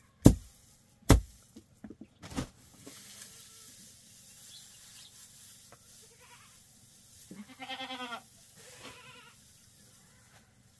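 Several loud, sharp knocks over the first two and a half seconds. Then a goat gives one wavering bleat about seven seconds in, with a fainter call just after.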